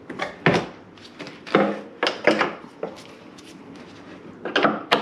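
Metal hooks of a bungee cord knocking and clattering against the underside of a car hood as it is hooked on, a handful of separate clanks about a second apart.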